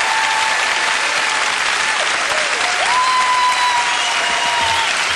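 Concert audience applauding, a dense steady clapping with a few long whistles held over it; one whistle rises in pitch about three seconds in.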